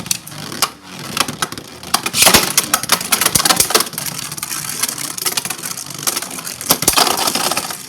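Two Hasbro Beyblade Burst tops spinning and grinding across a Beyblade stadium, with many sharp clacks as they strike each other. The clashes come thickest about two to four seconds in.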